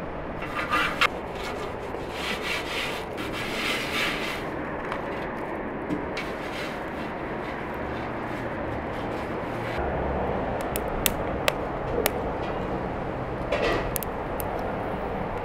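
A hand scrubbing the inside of a large aluminium pot in quick rubbing strokes. Later, a wood fire burns with a few sharp snaps.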